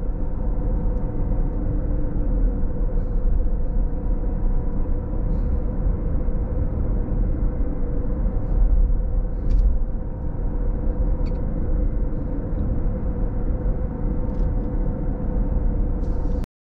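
A car running, a steady low rumble of engine and road noise with a faint steady drone, broken by a few faint clicks. It cuts off suddenly near the end.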